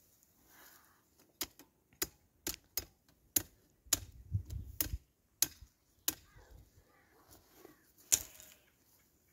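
Willow rods being worked by hand at the top of a woven willow panel, making a string of sharp, uneven clicks and snaps, the loudest near the end. A brief low rumble comes about four seconds in.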